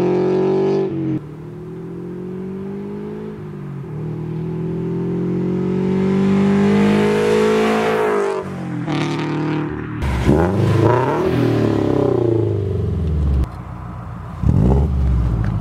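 Scion FR-S's flat-four boxer engine breathing through JDL unequal-length headers, accelerating hard: its pitch climbs, drops back at shifts about a second and about four seconds in, then climbs again. From about ten seconds in it sounds louder and closer, and it gives a short sharp rev near the end.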